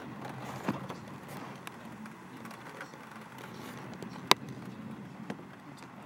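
Rain falling steadily, with three sharp taps, the loudest about four seconds in.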